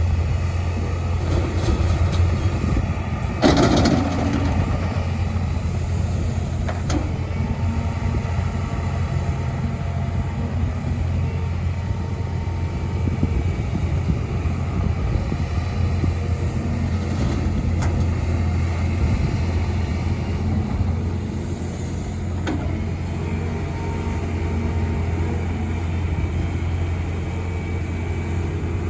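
Heavy diesel engine of a hydraulic excavator loading a dump truck, running steadily, with a loud clatter of soil and rock about three and a half seconds in and a few lighter knocks later.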